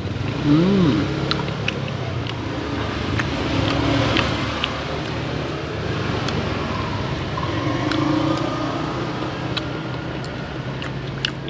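Road traffic running by, with a brief rising-then-falling note about a second in, and scattered light clinks of a metal spoon against a ceramic bowl of porridge.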